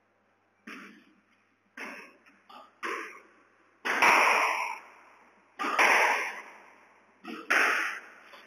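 Squash ball struck with a racket and rebounding off the court walls: about eight sharp hits at uneven intervals, each ringing on briefly in the echoing court, the loudest near the middle and toward the end.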